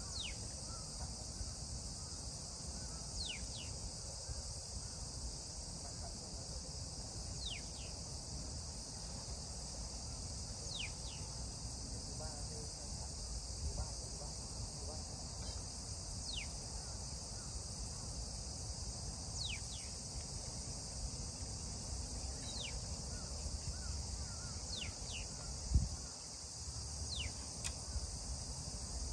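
Steady high-pitched insect chorus, with short falling chirps every few seconds and a single thump near the end.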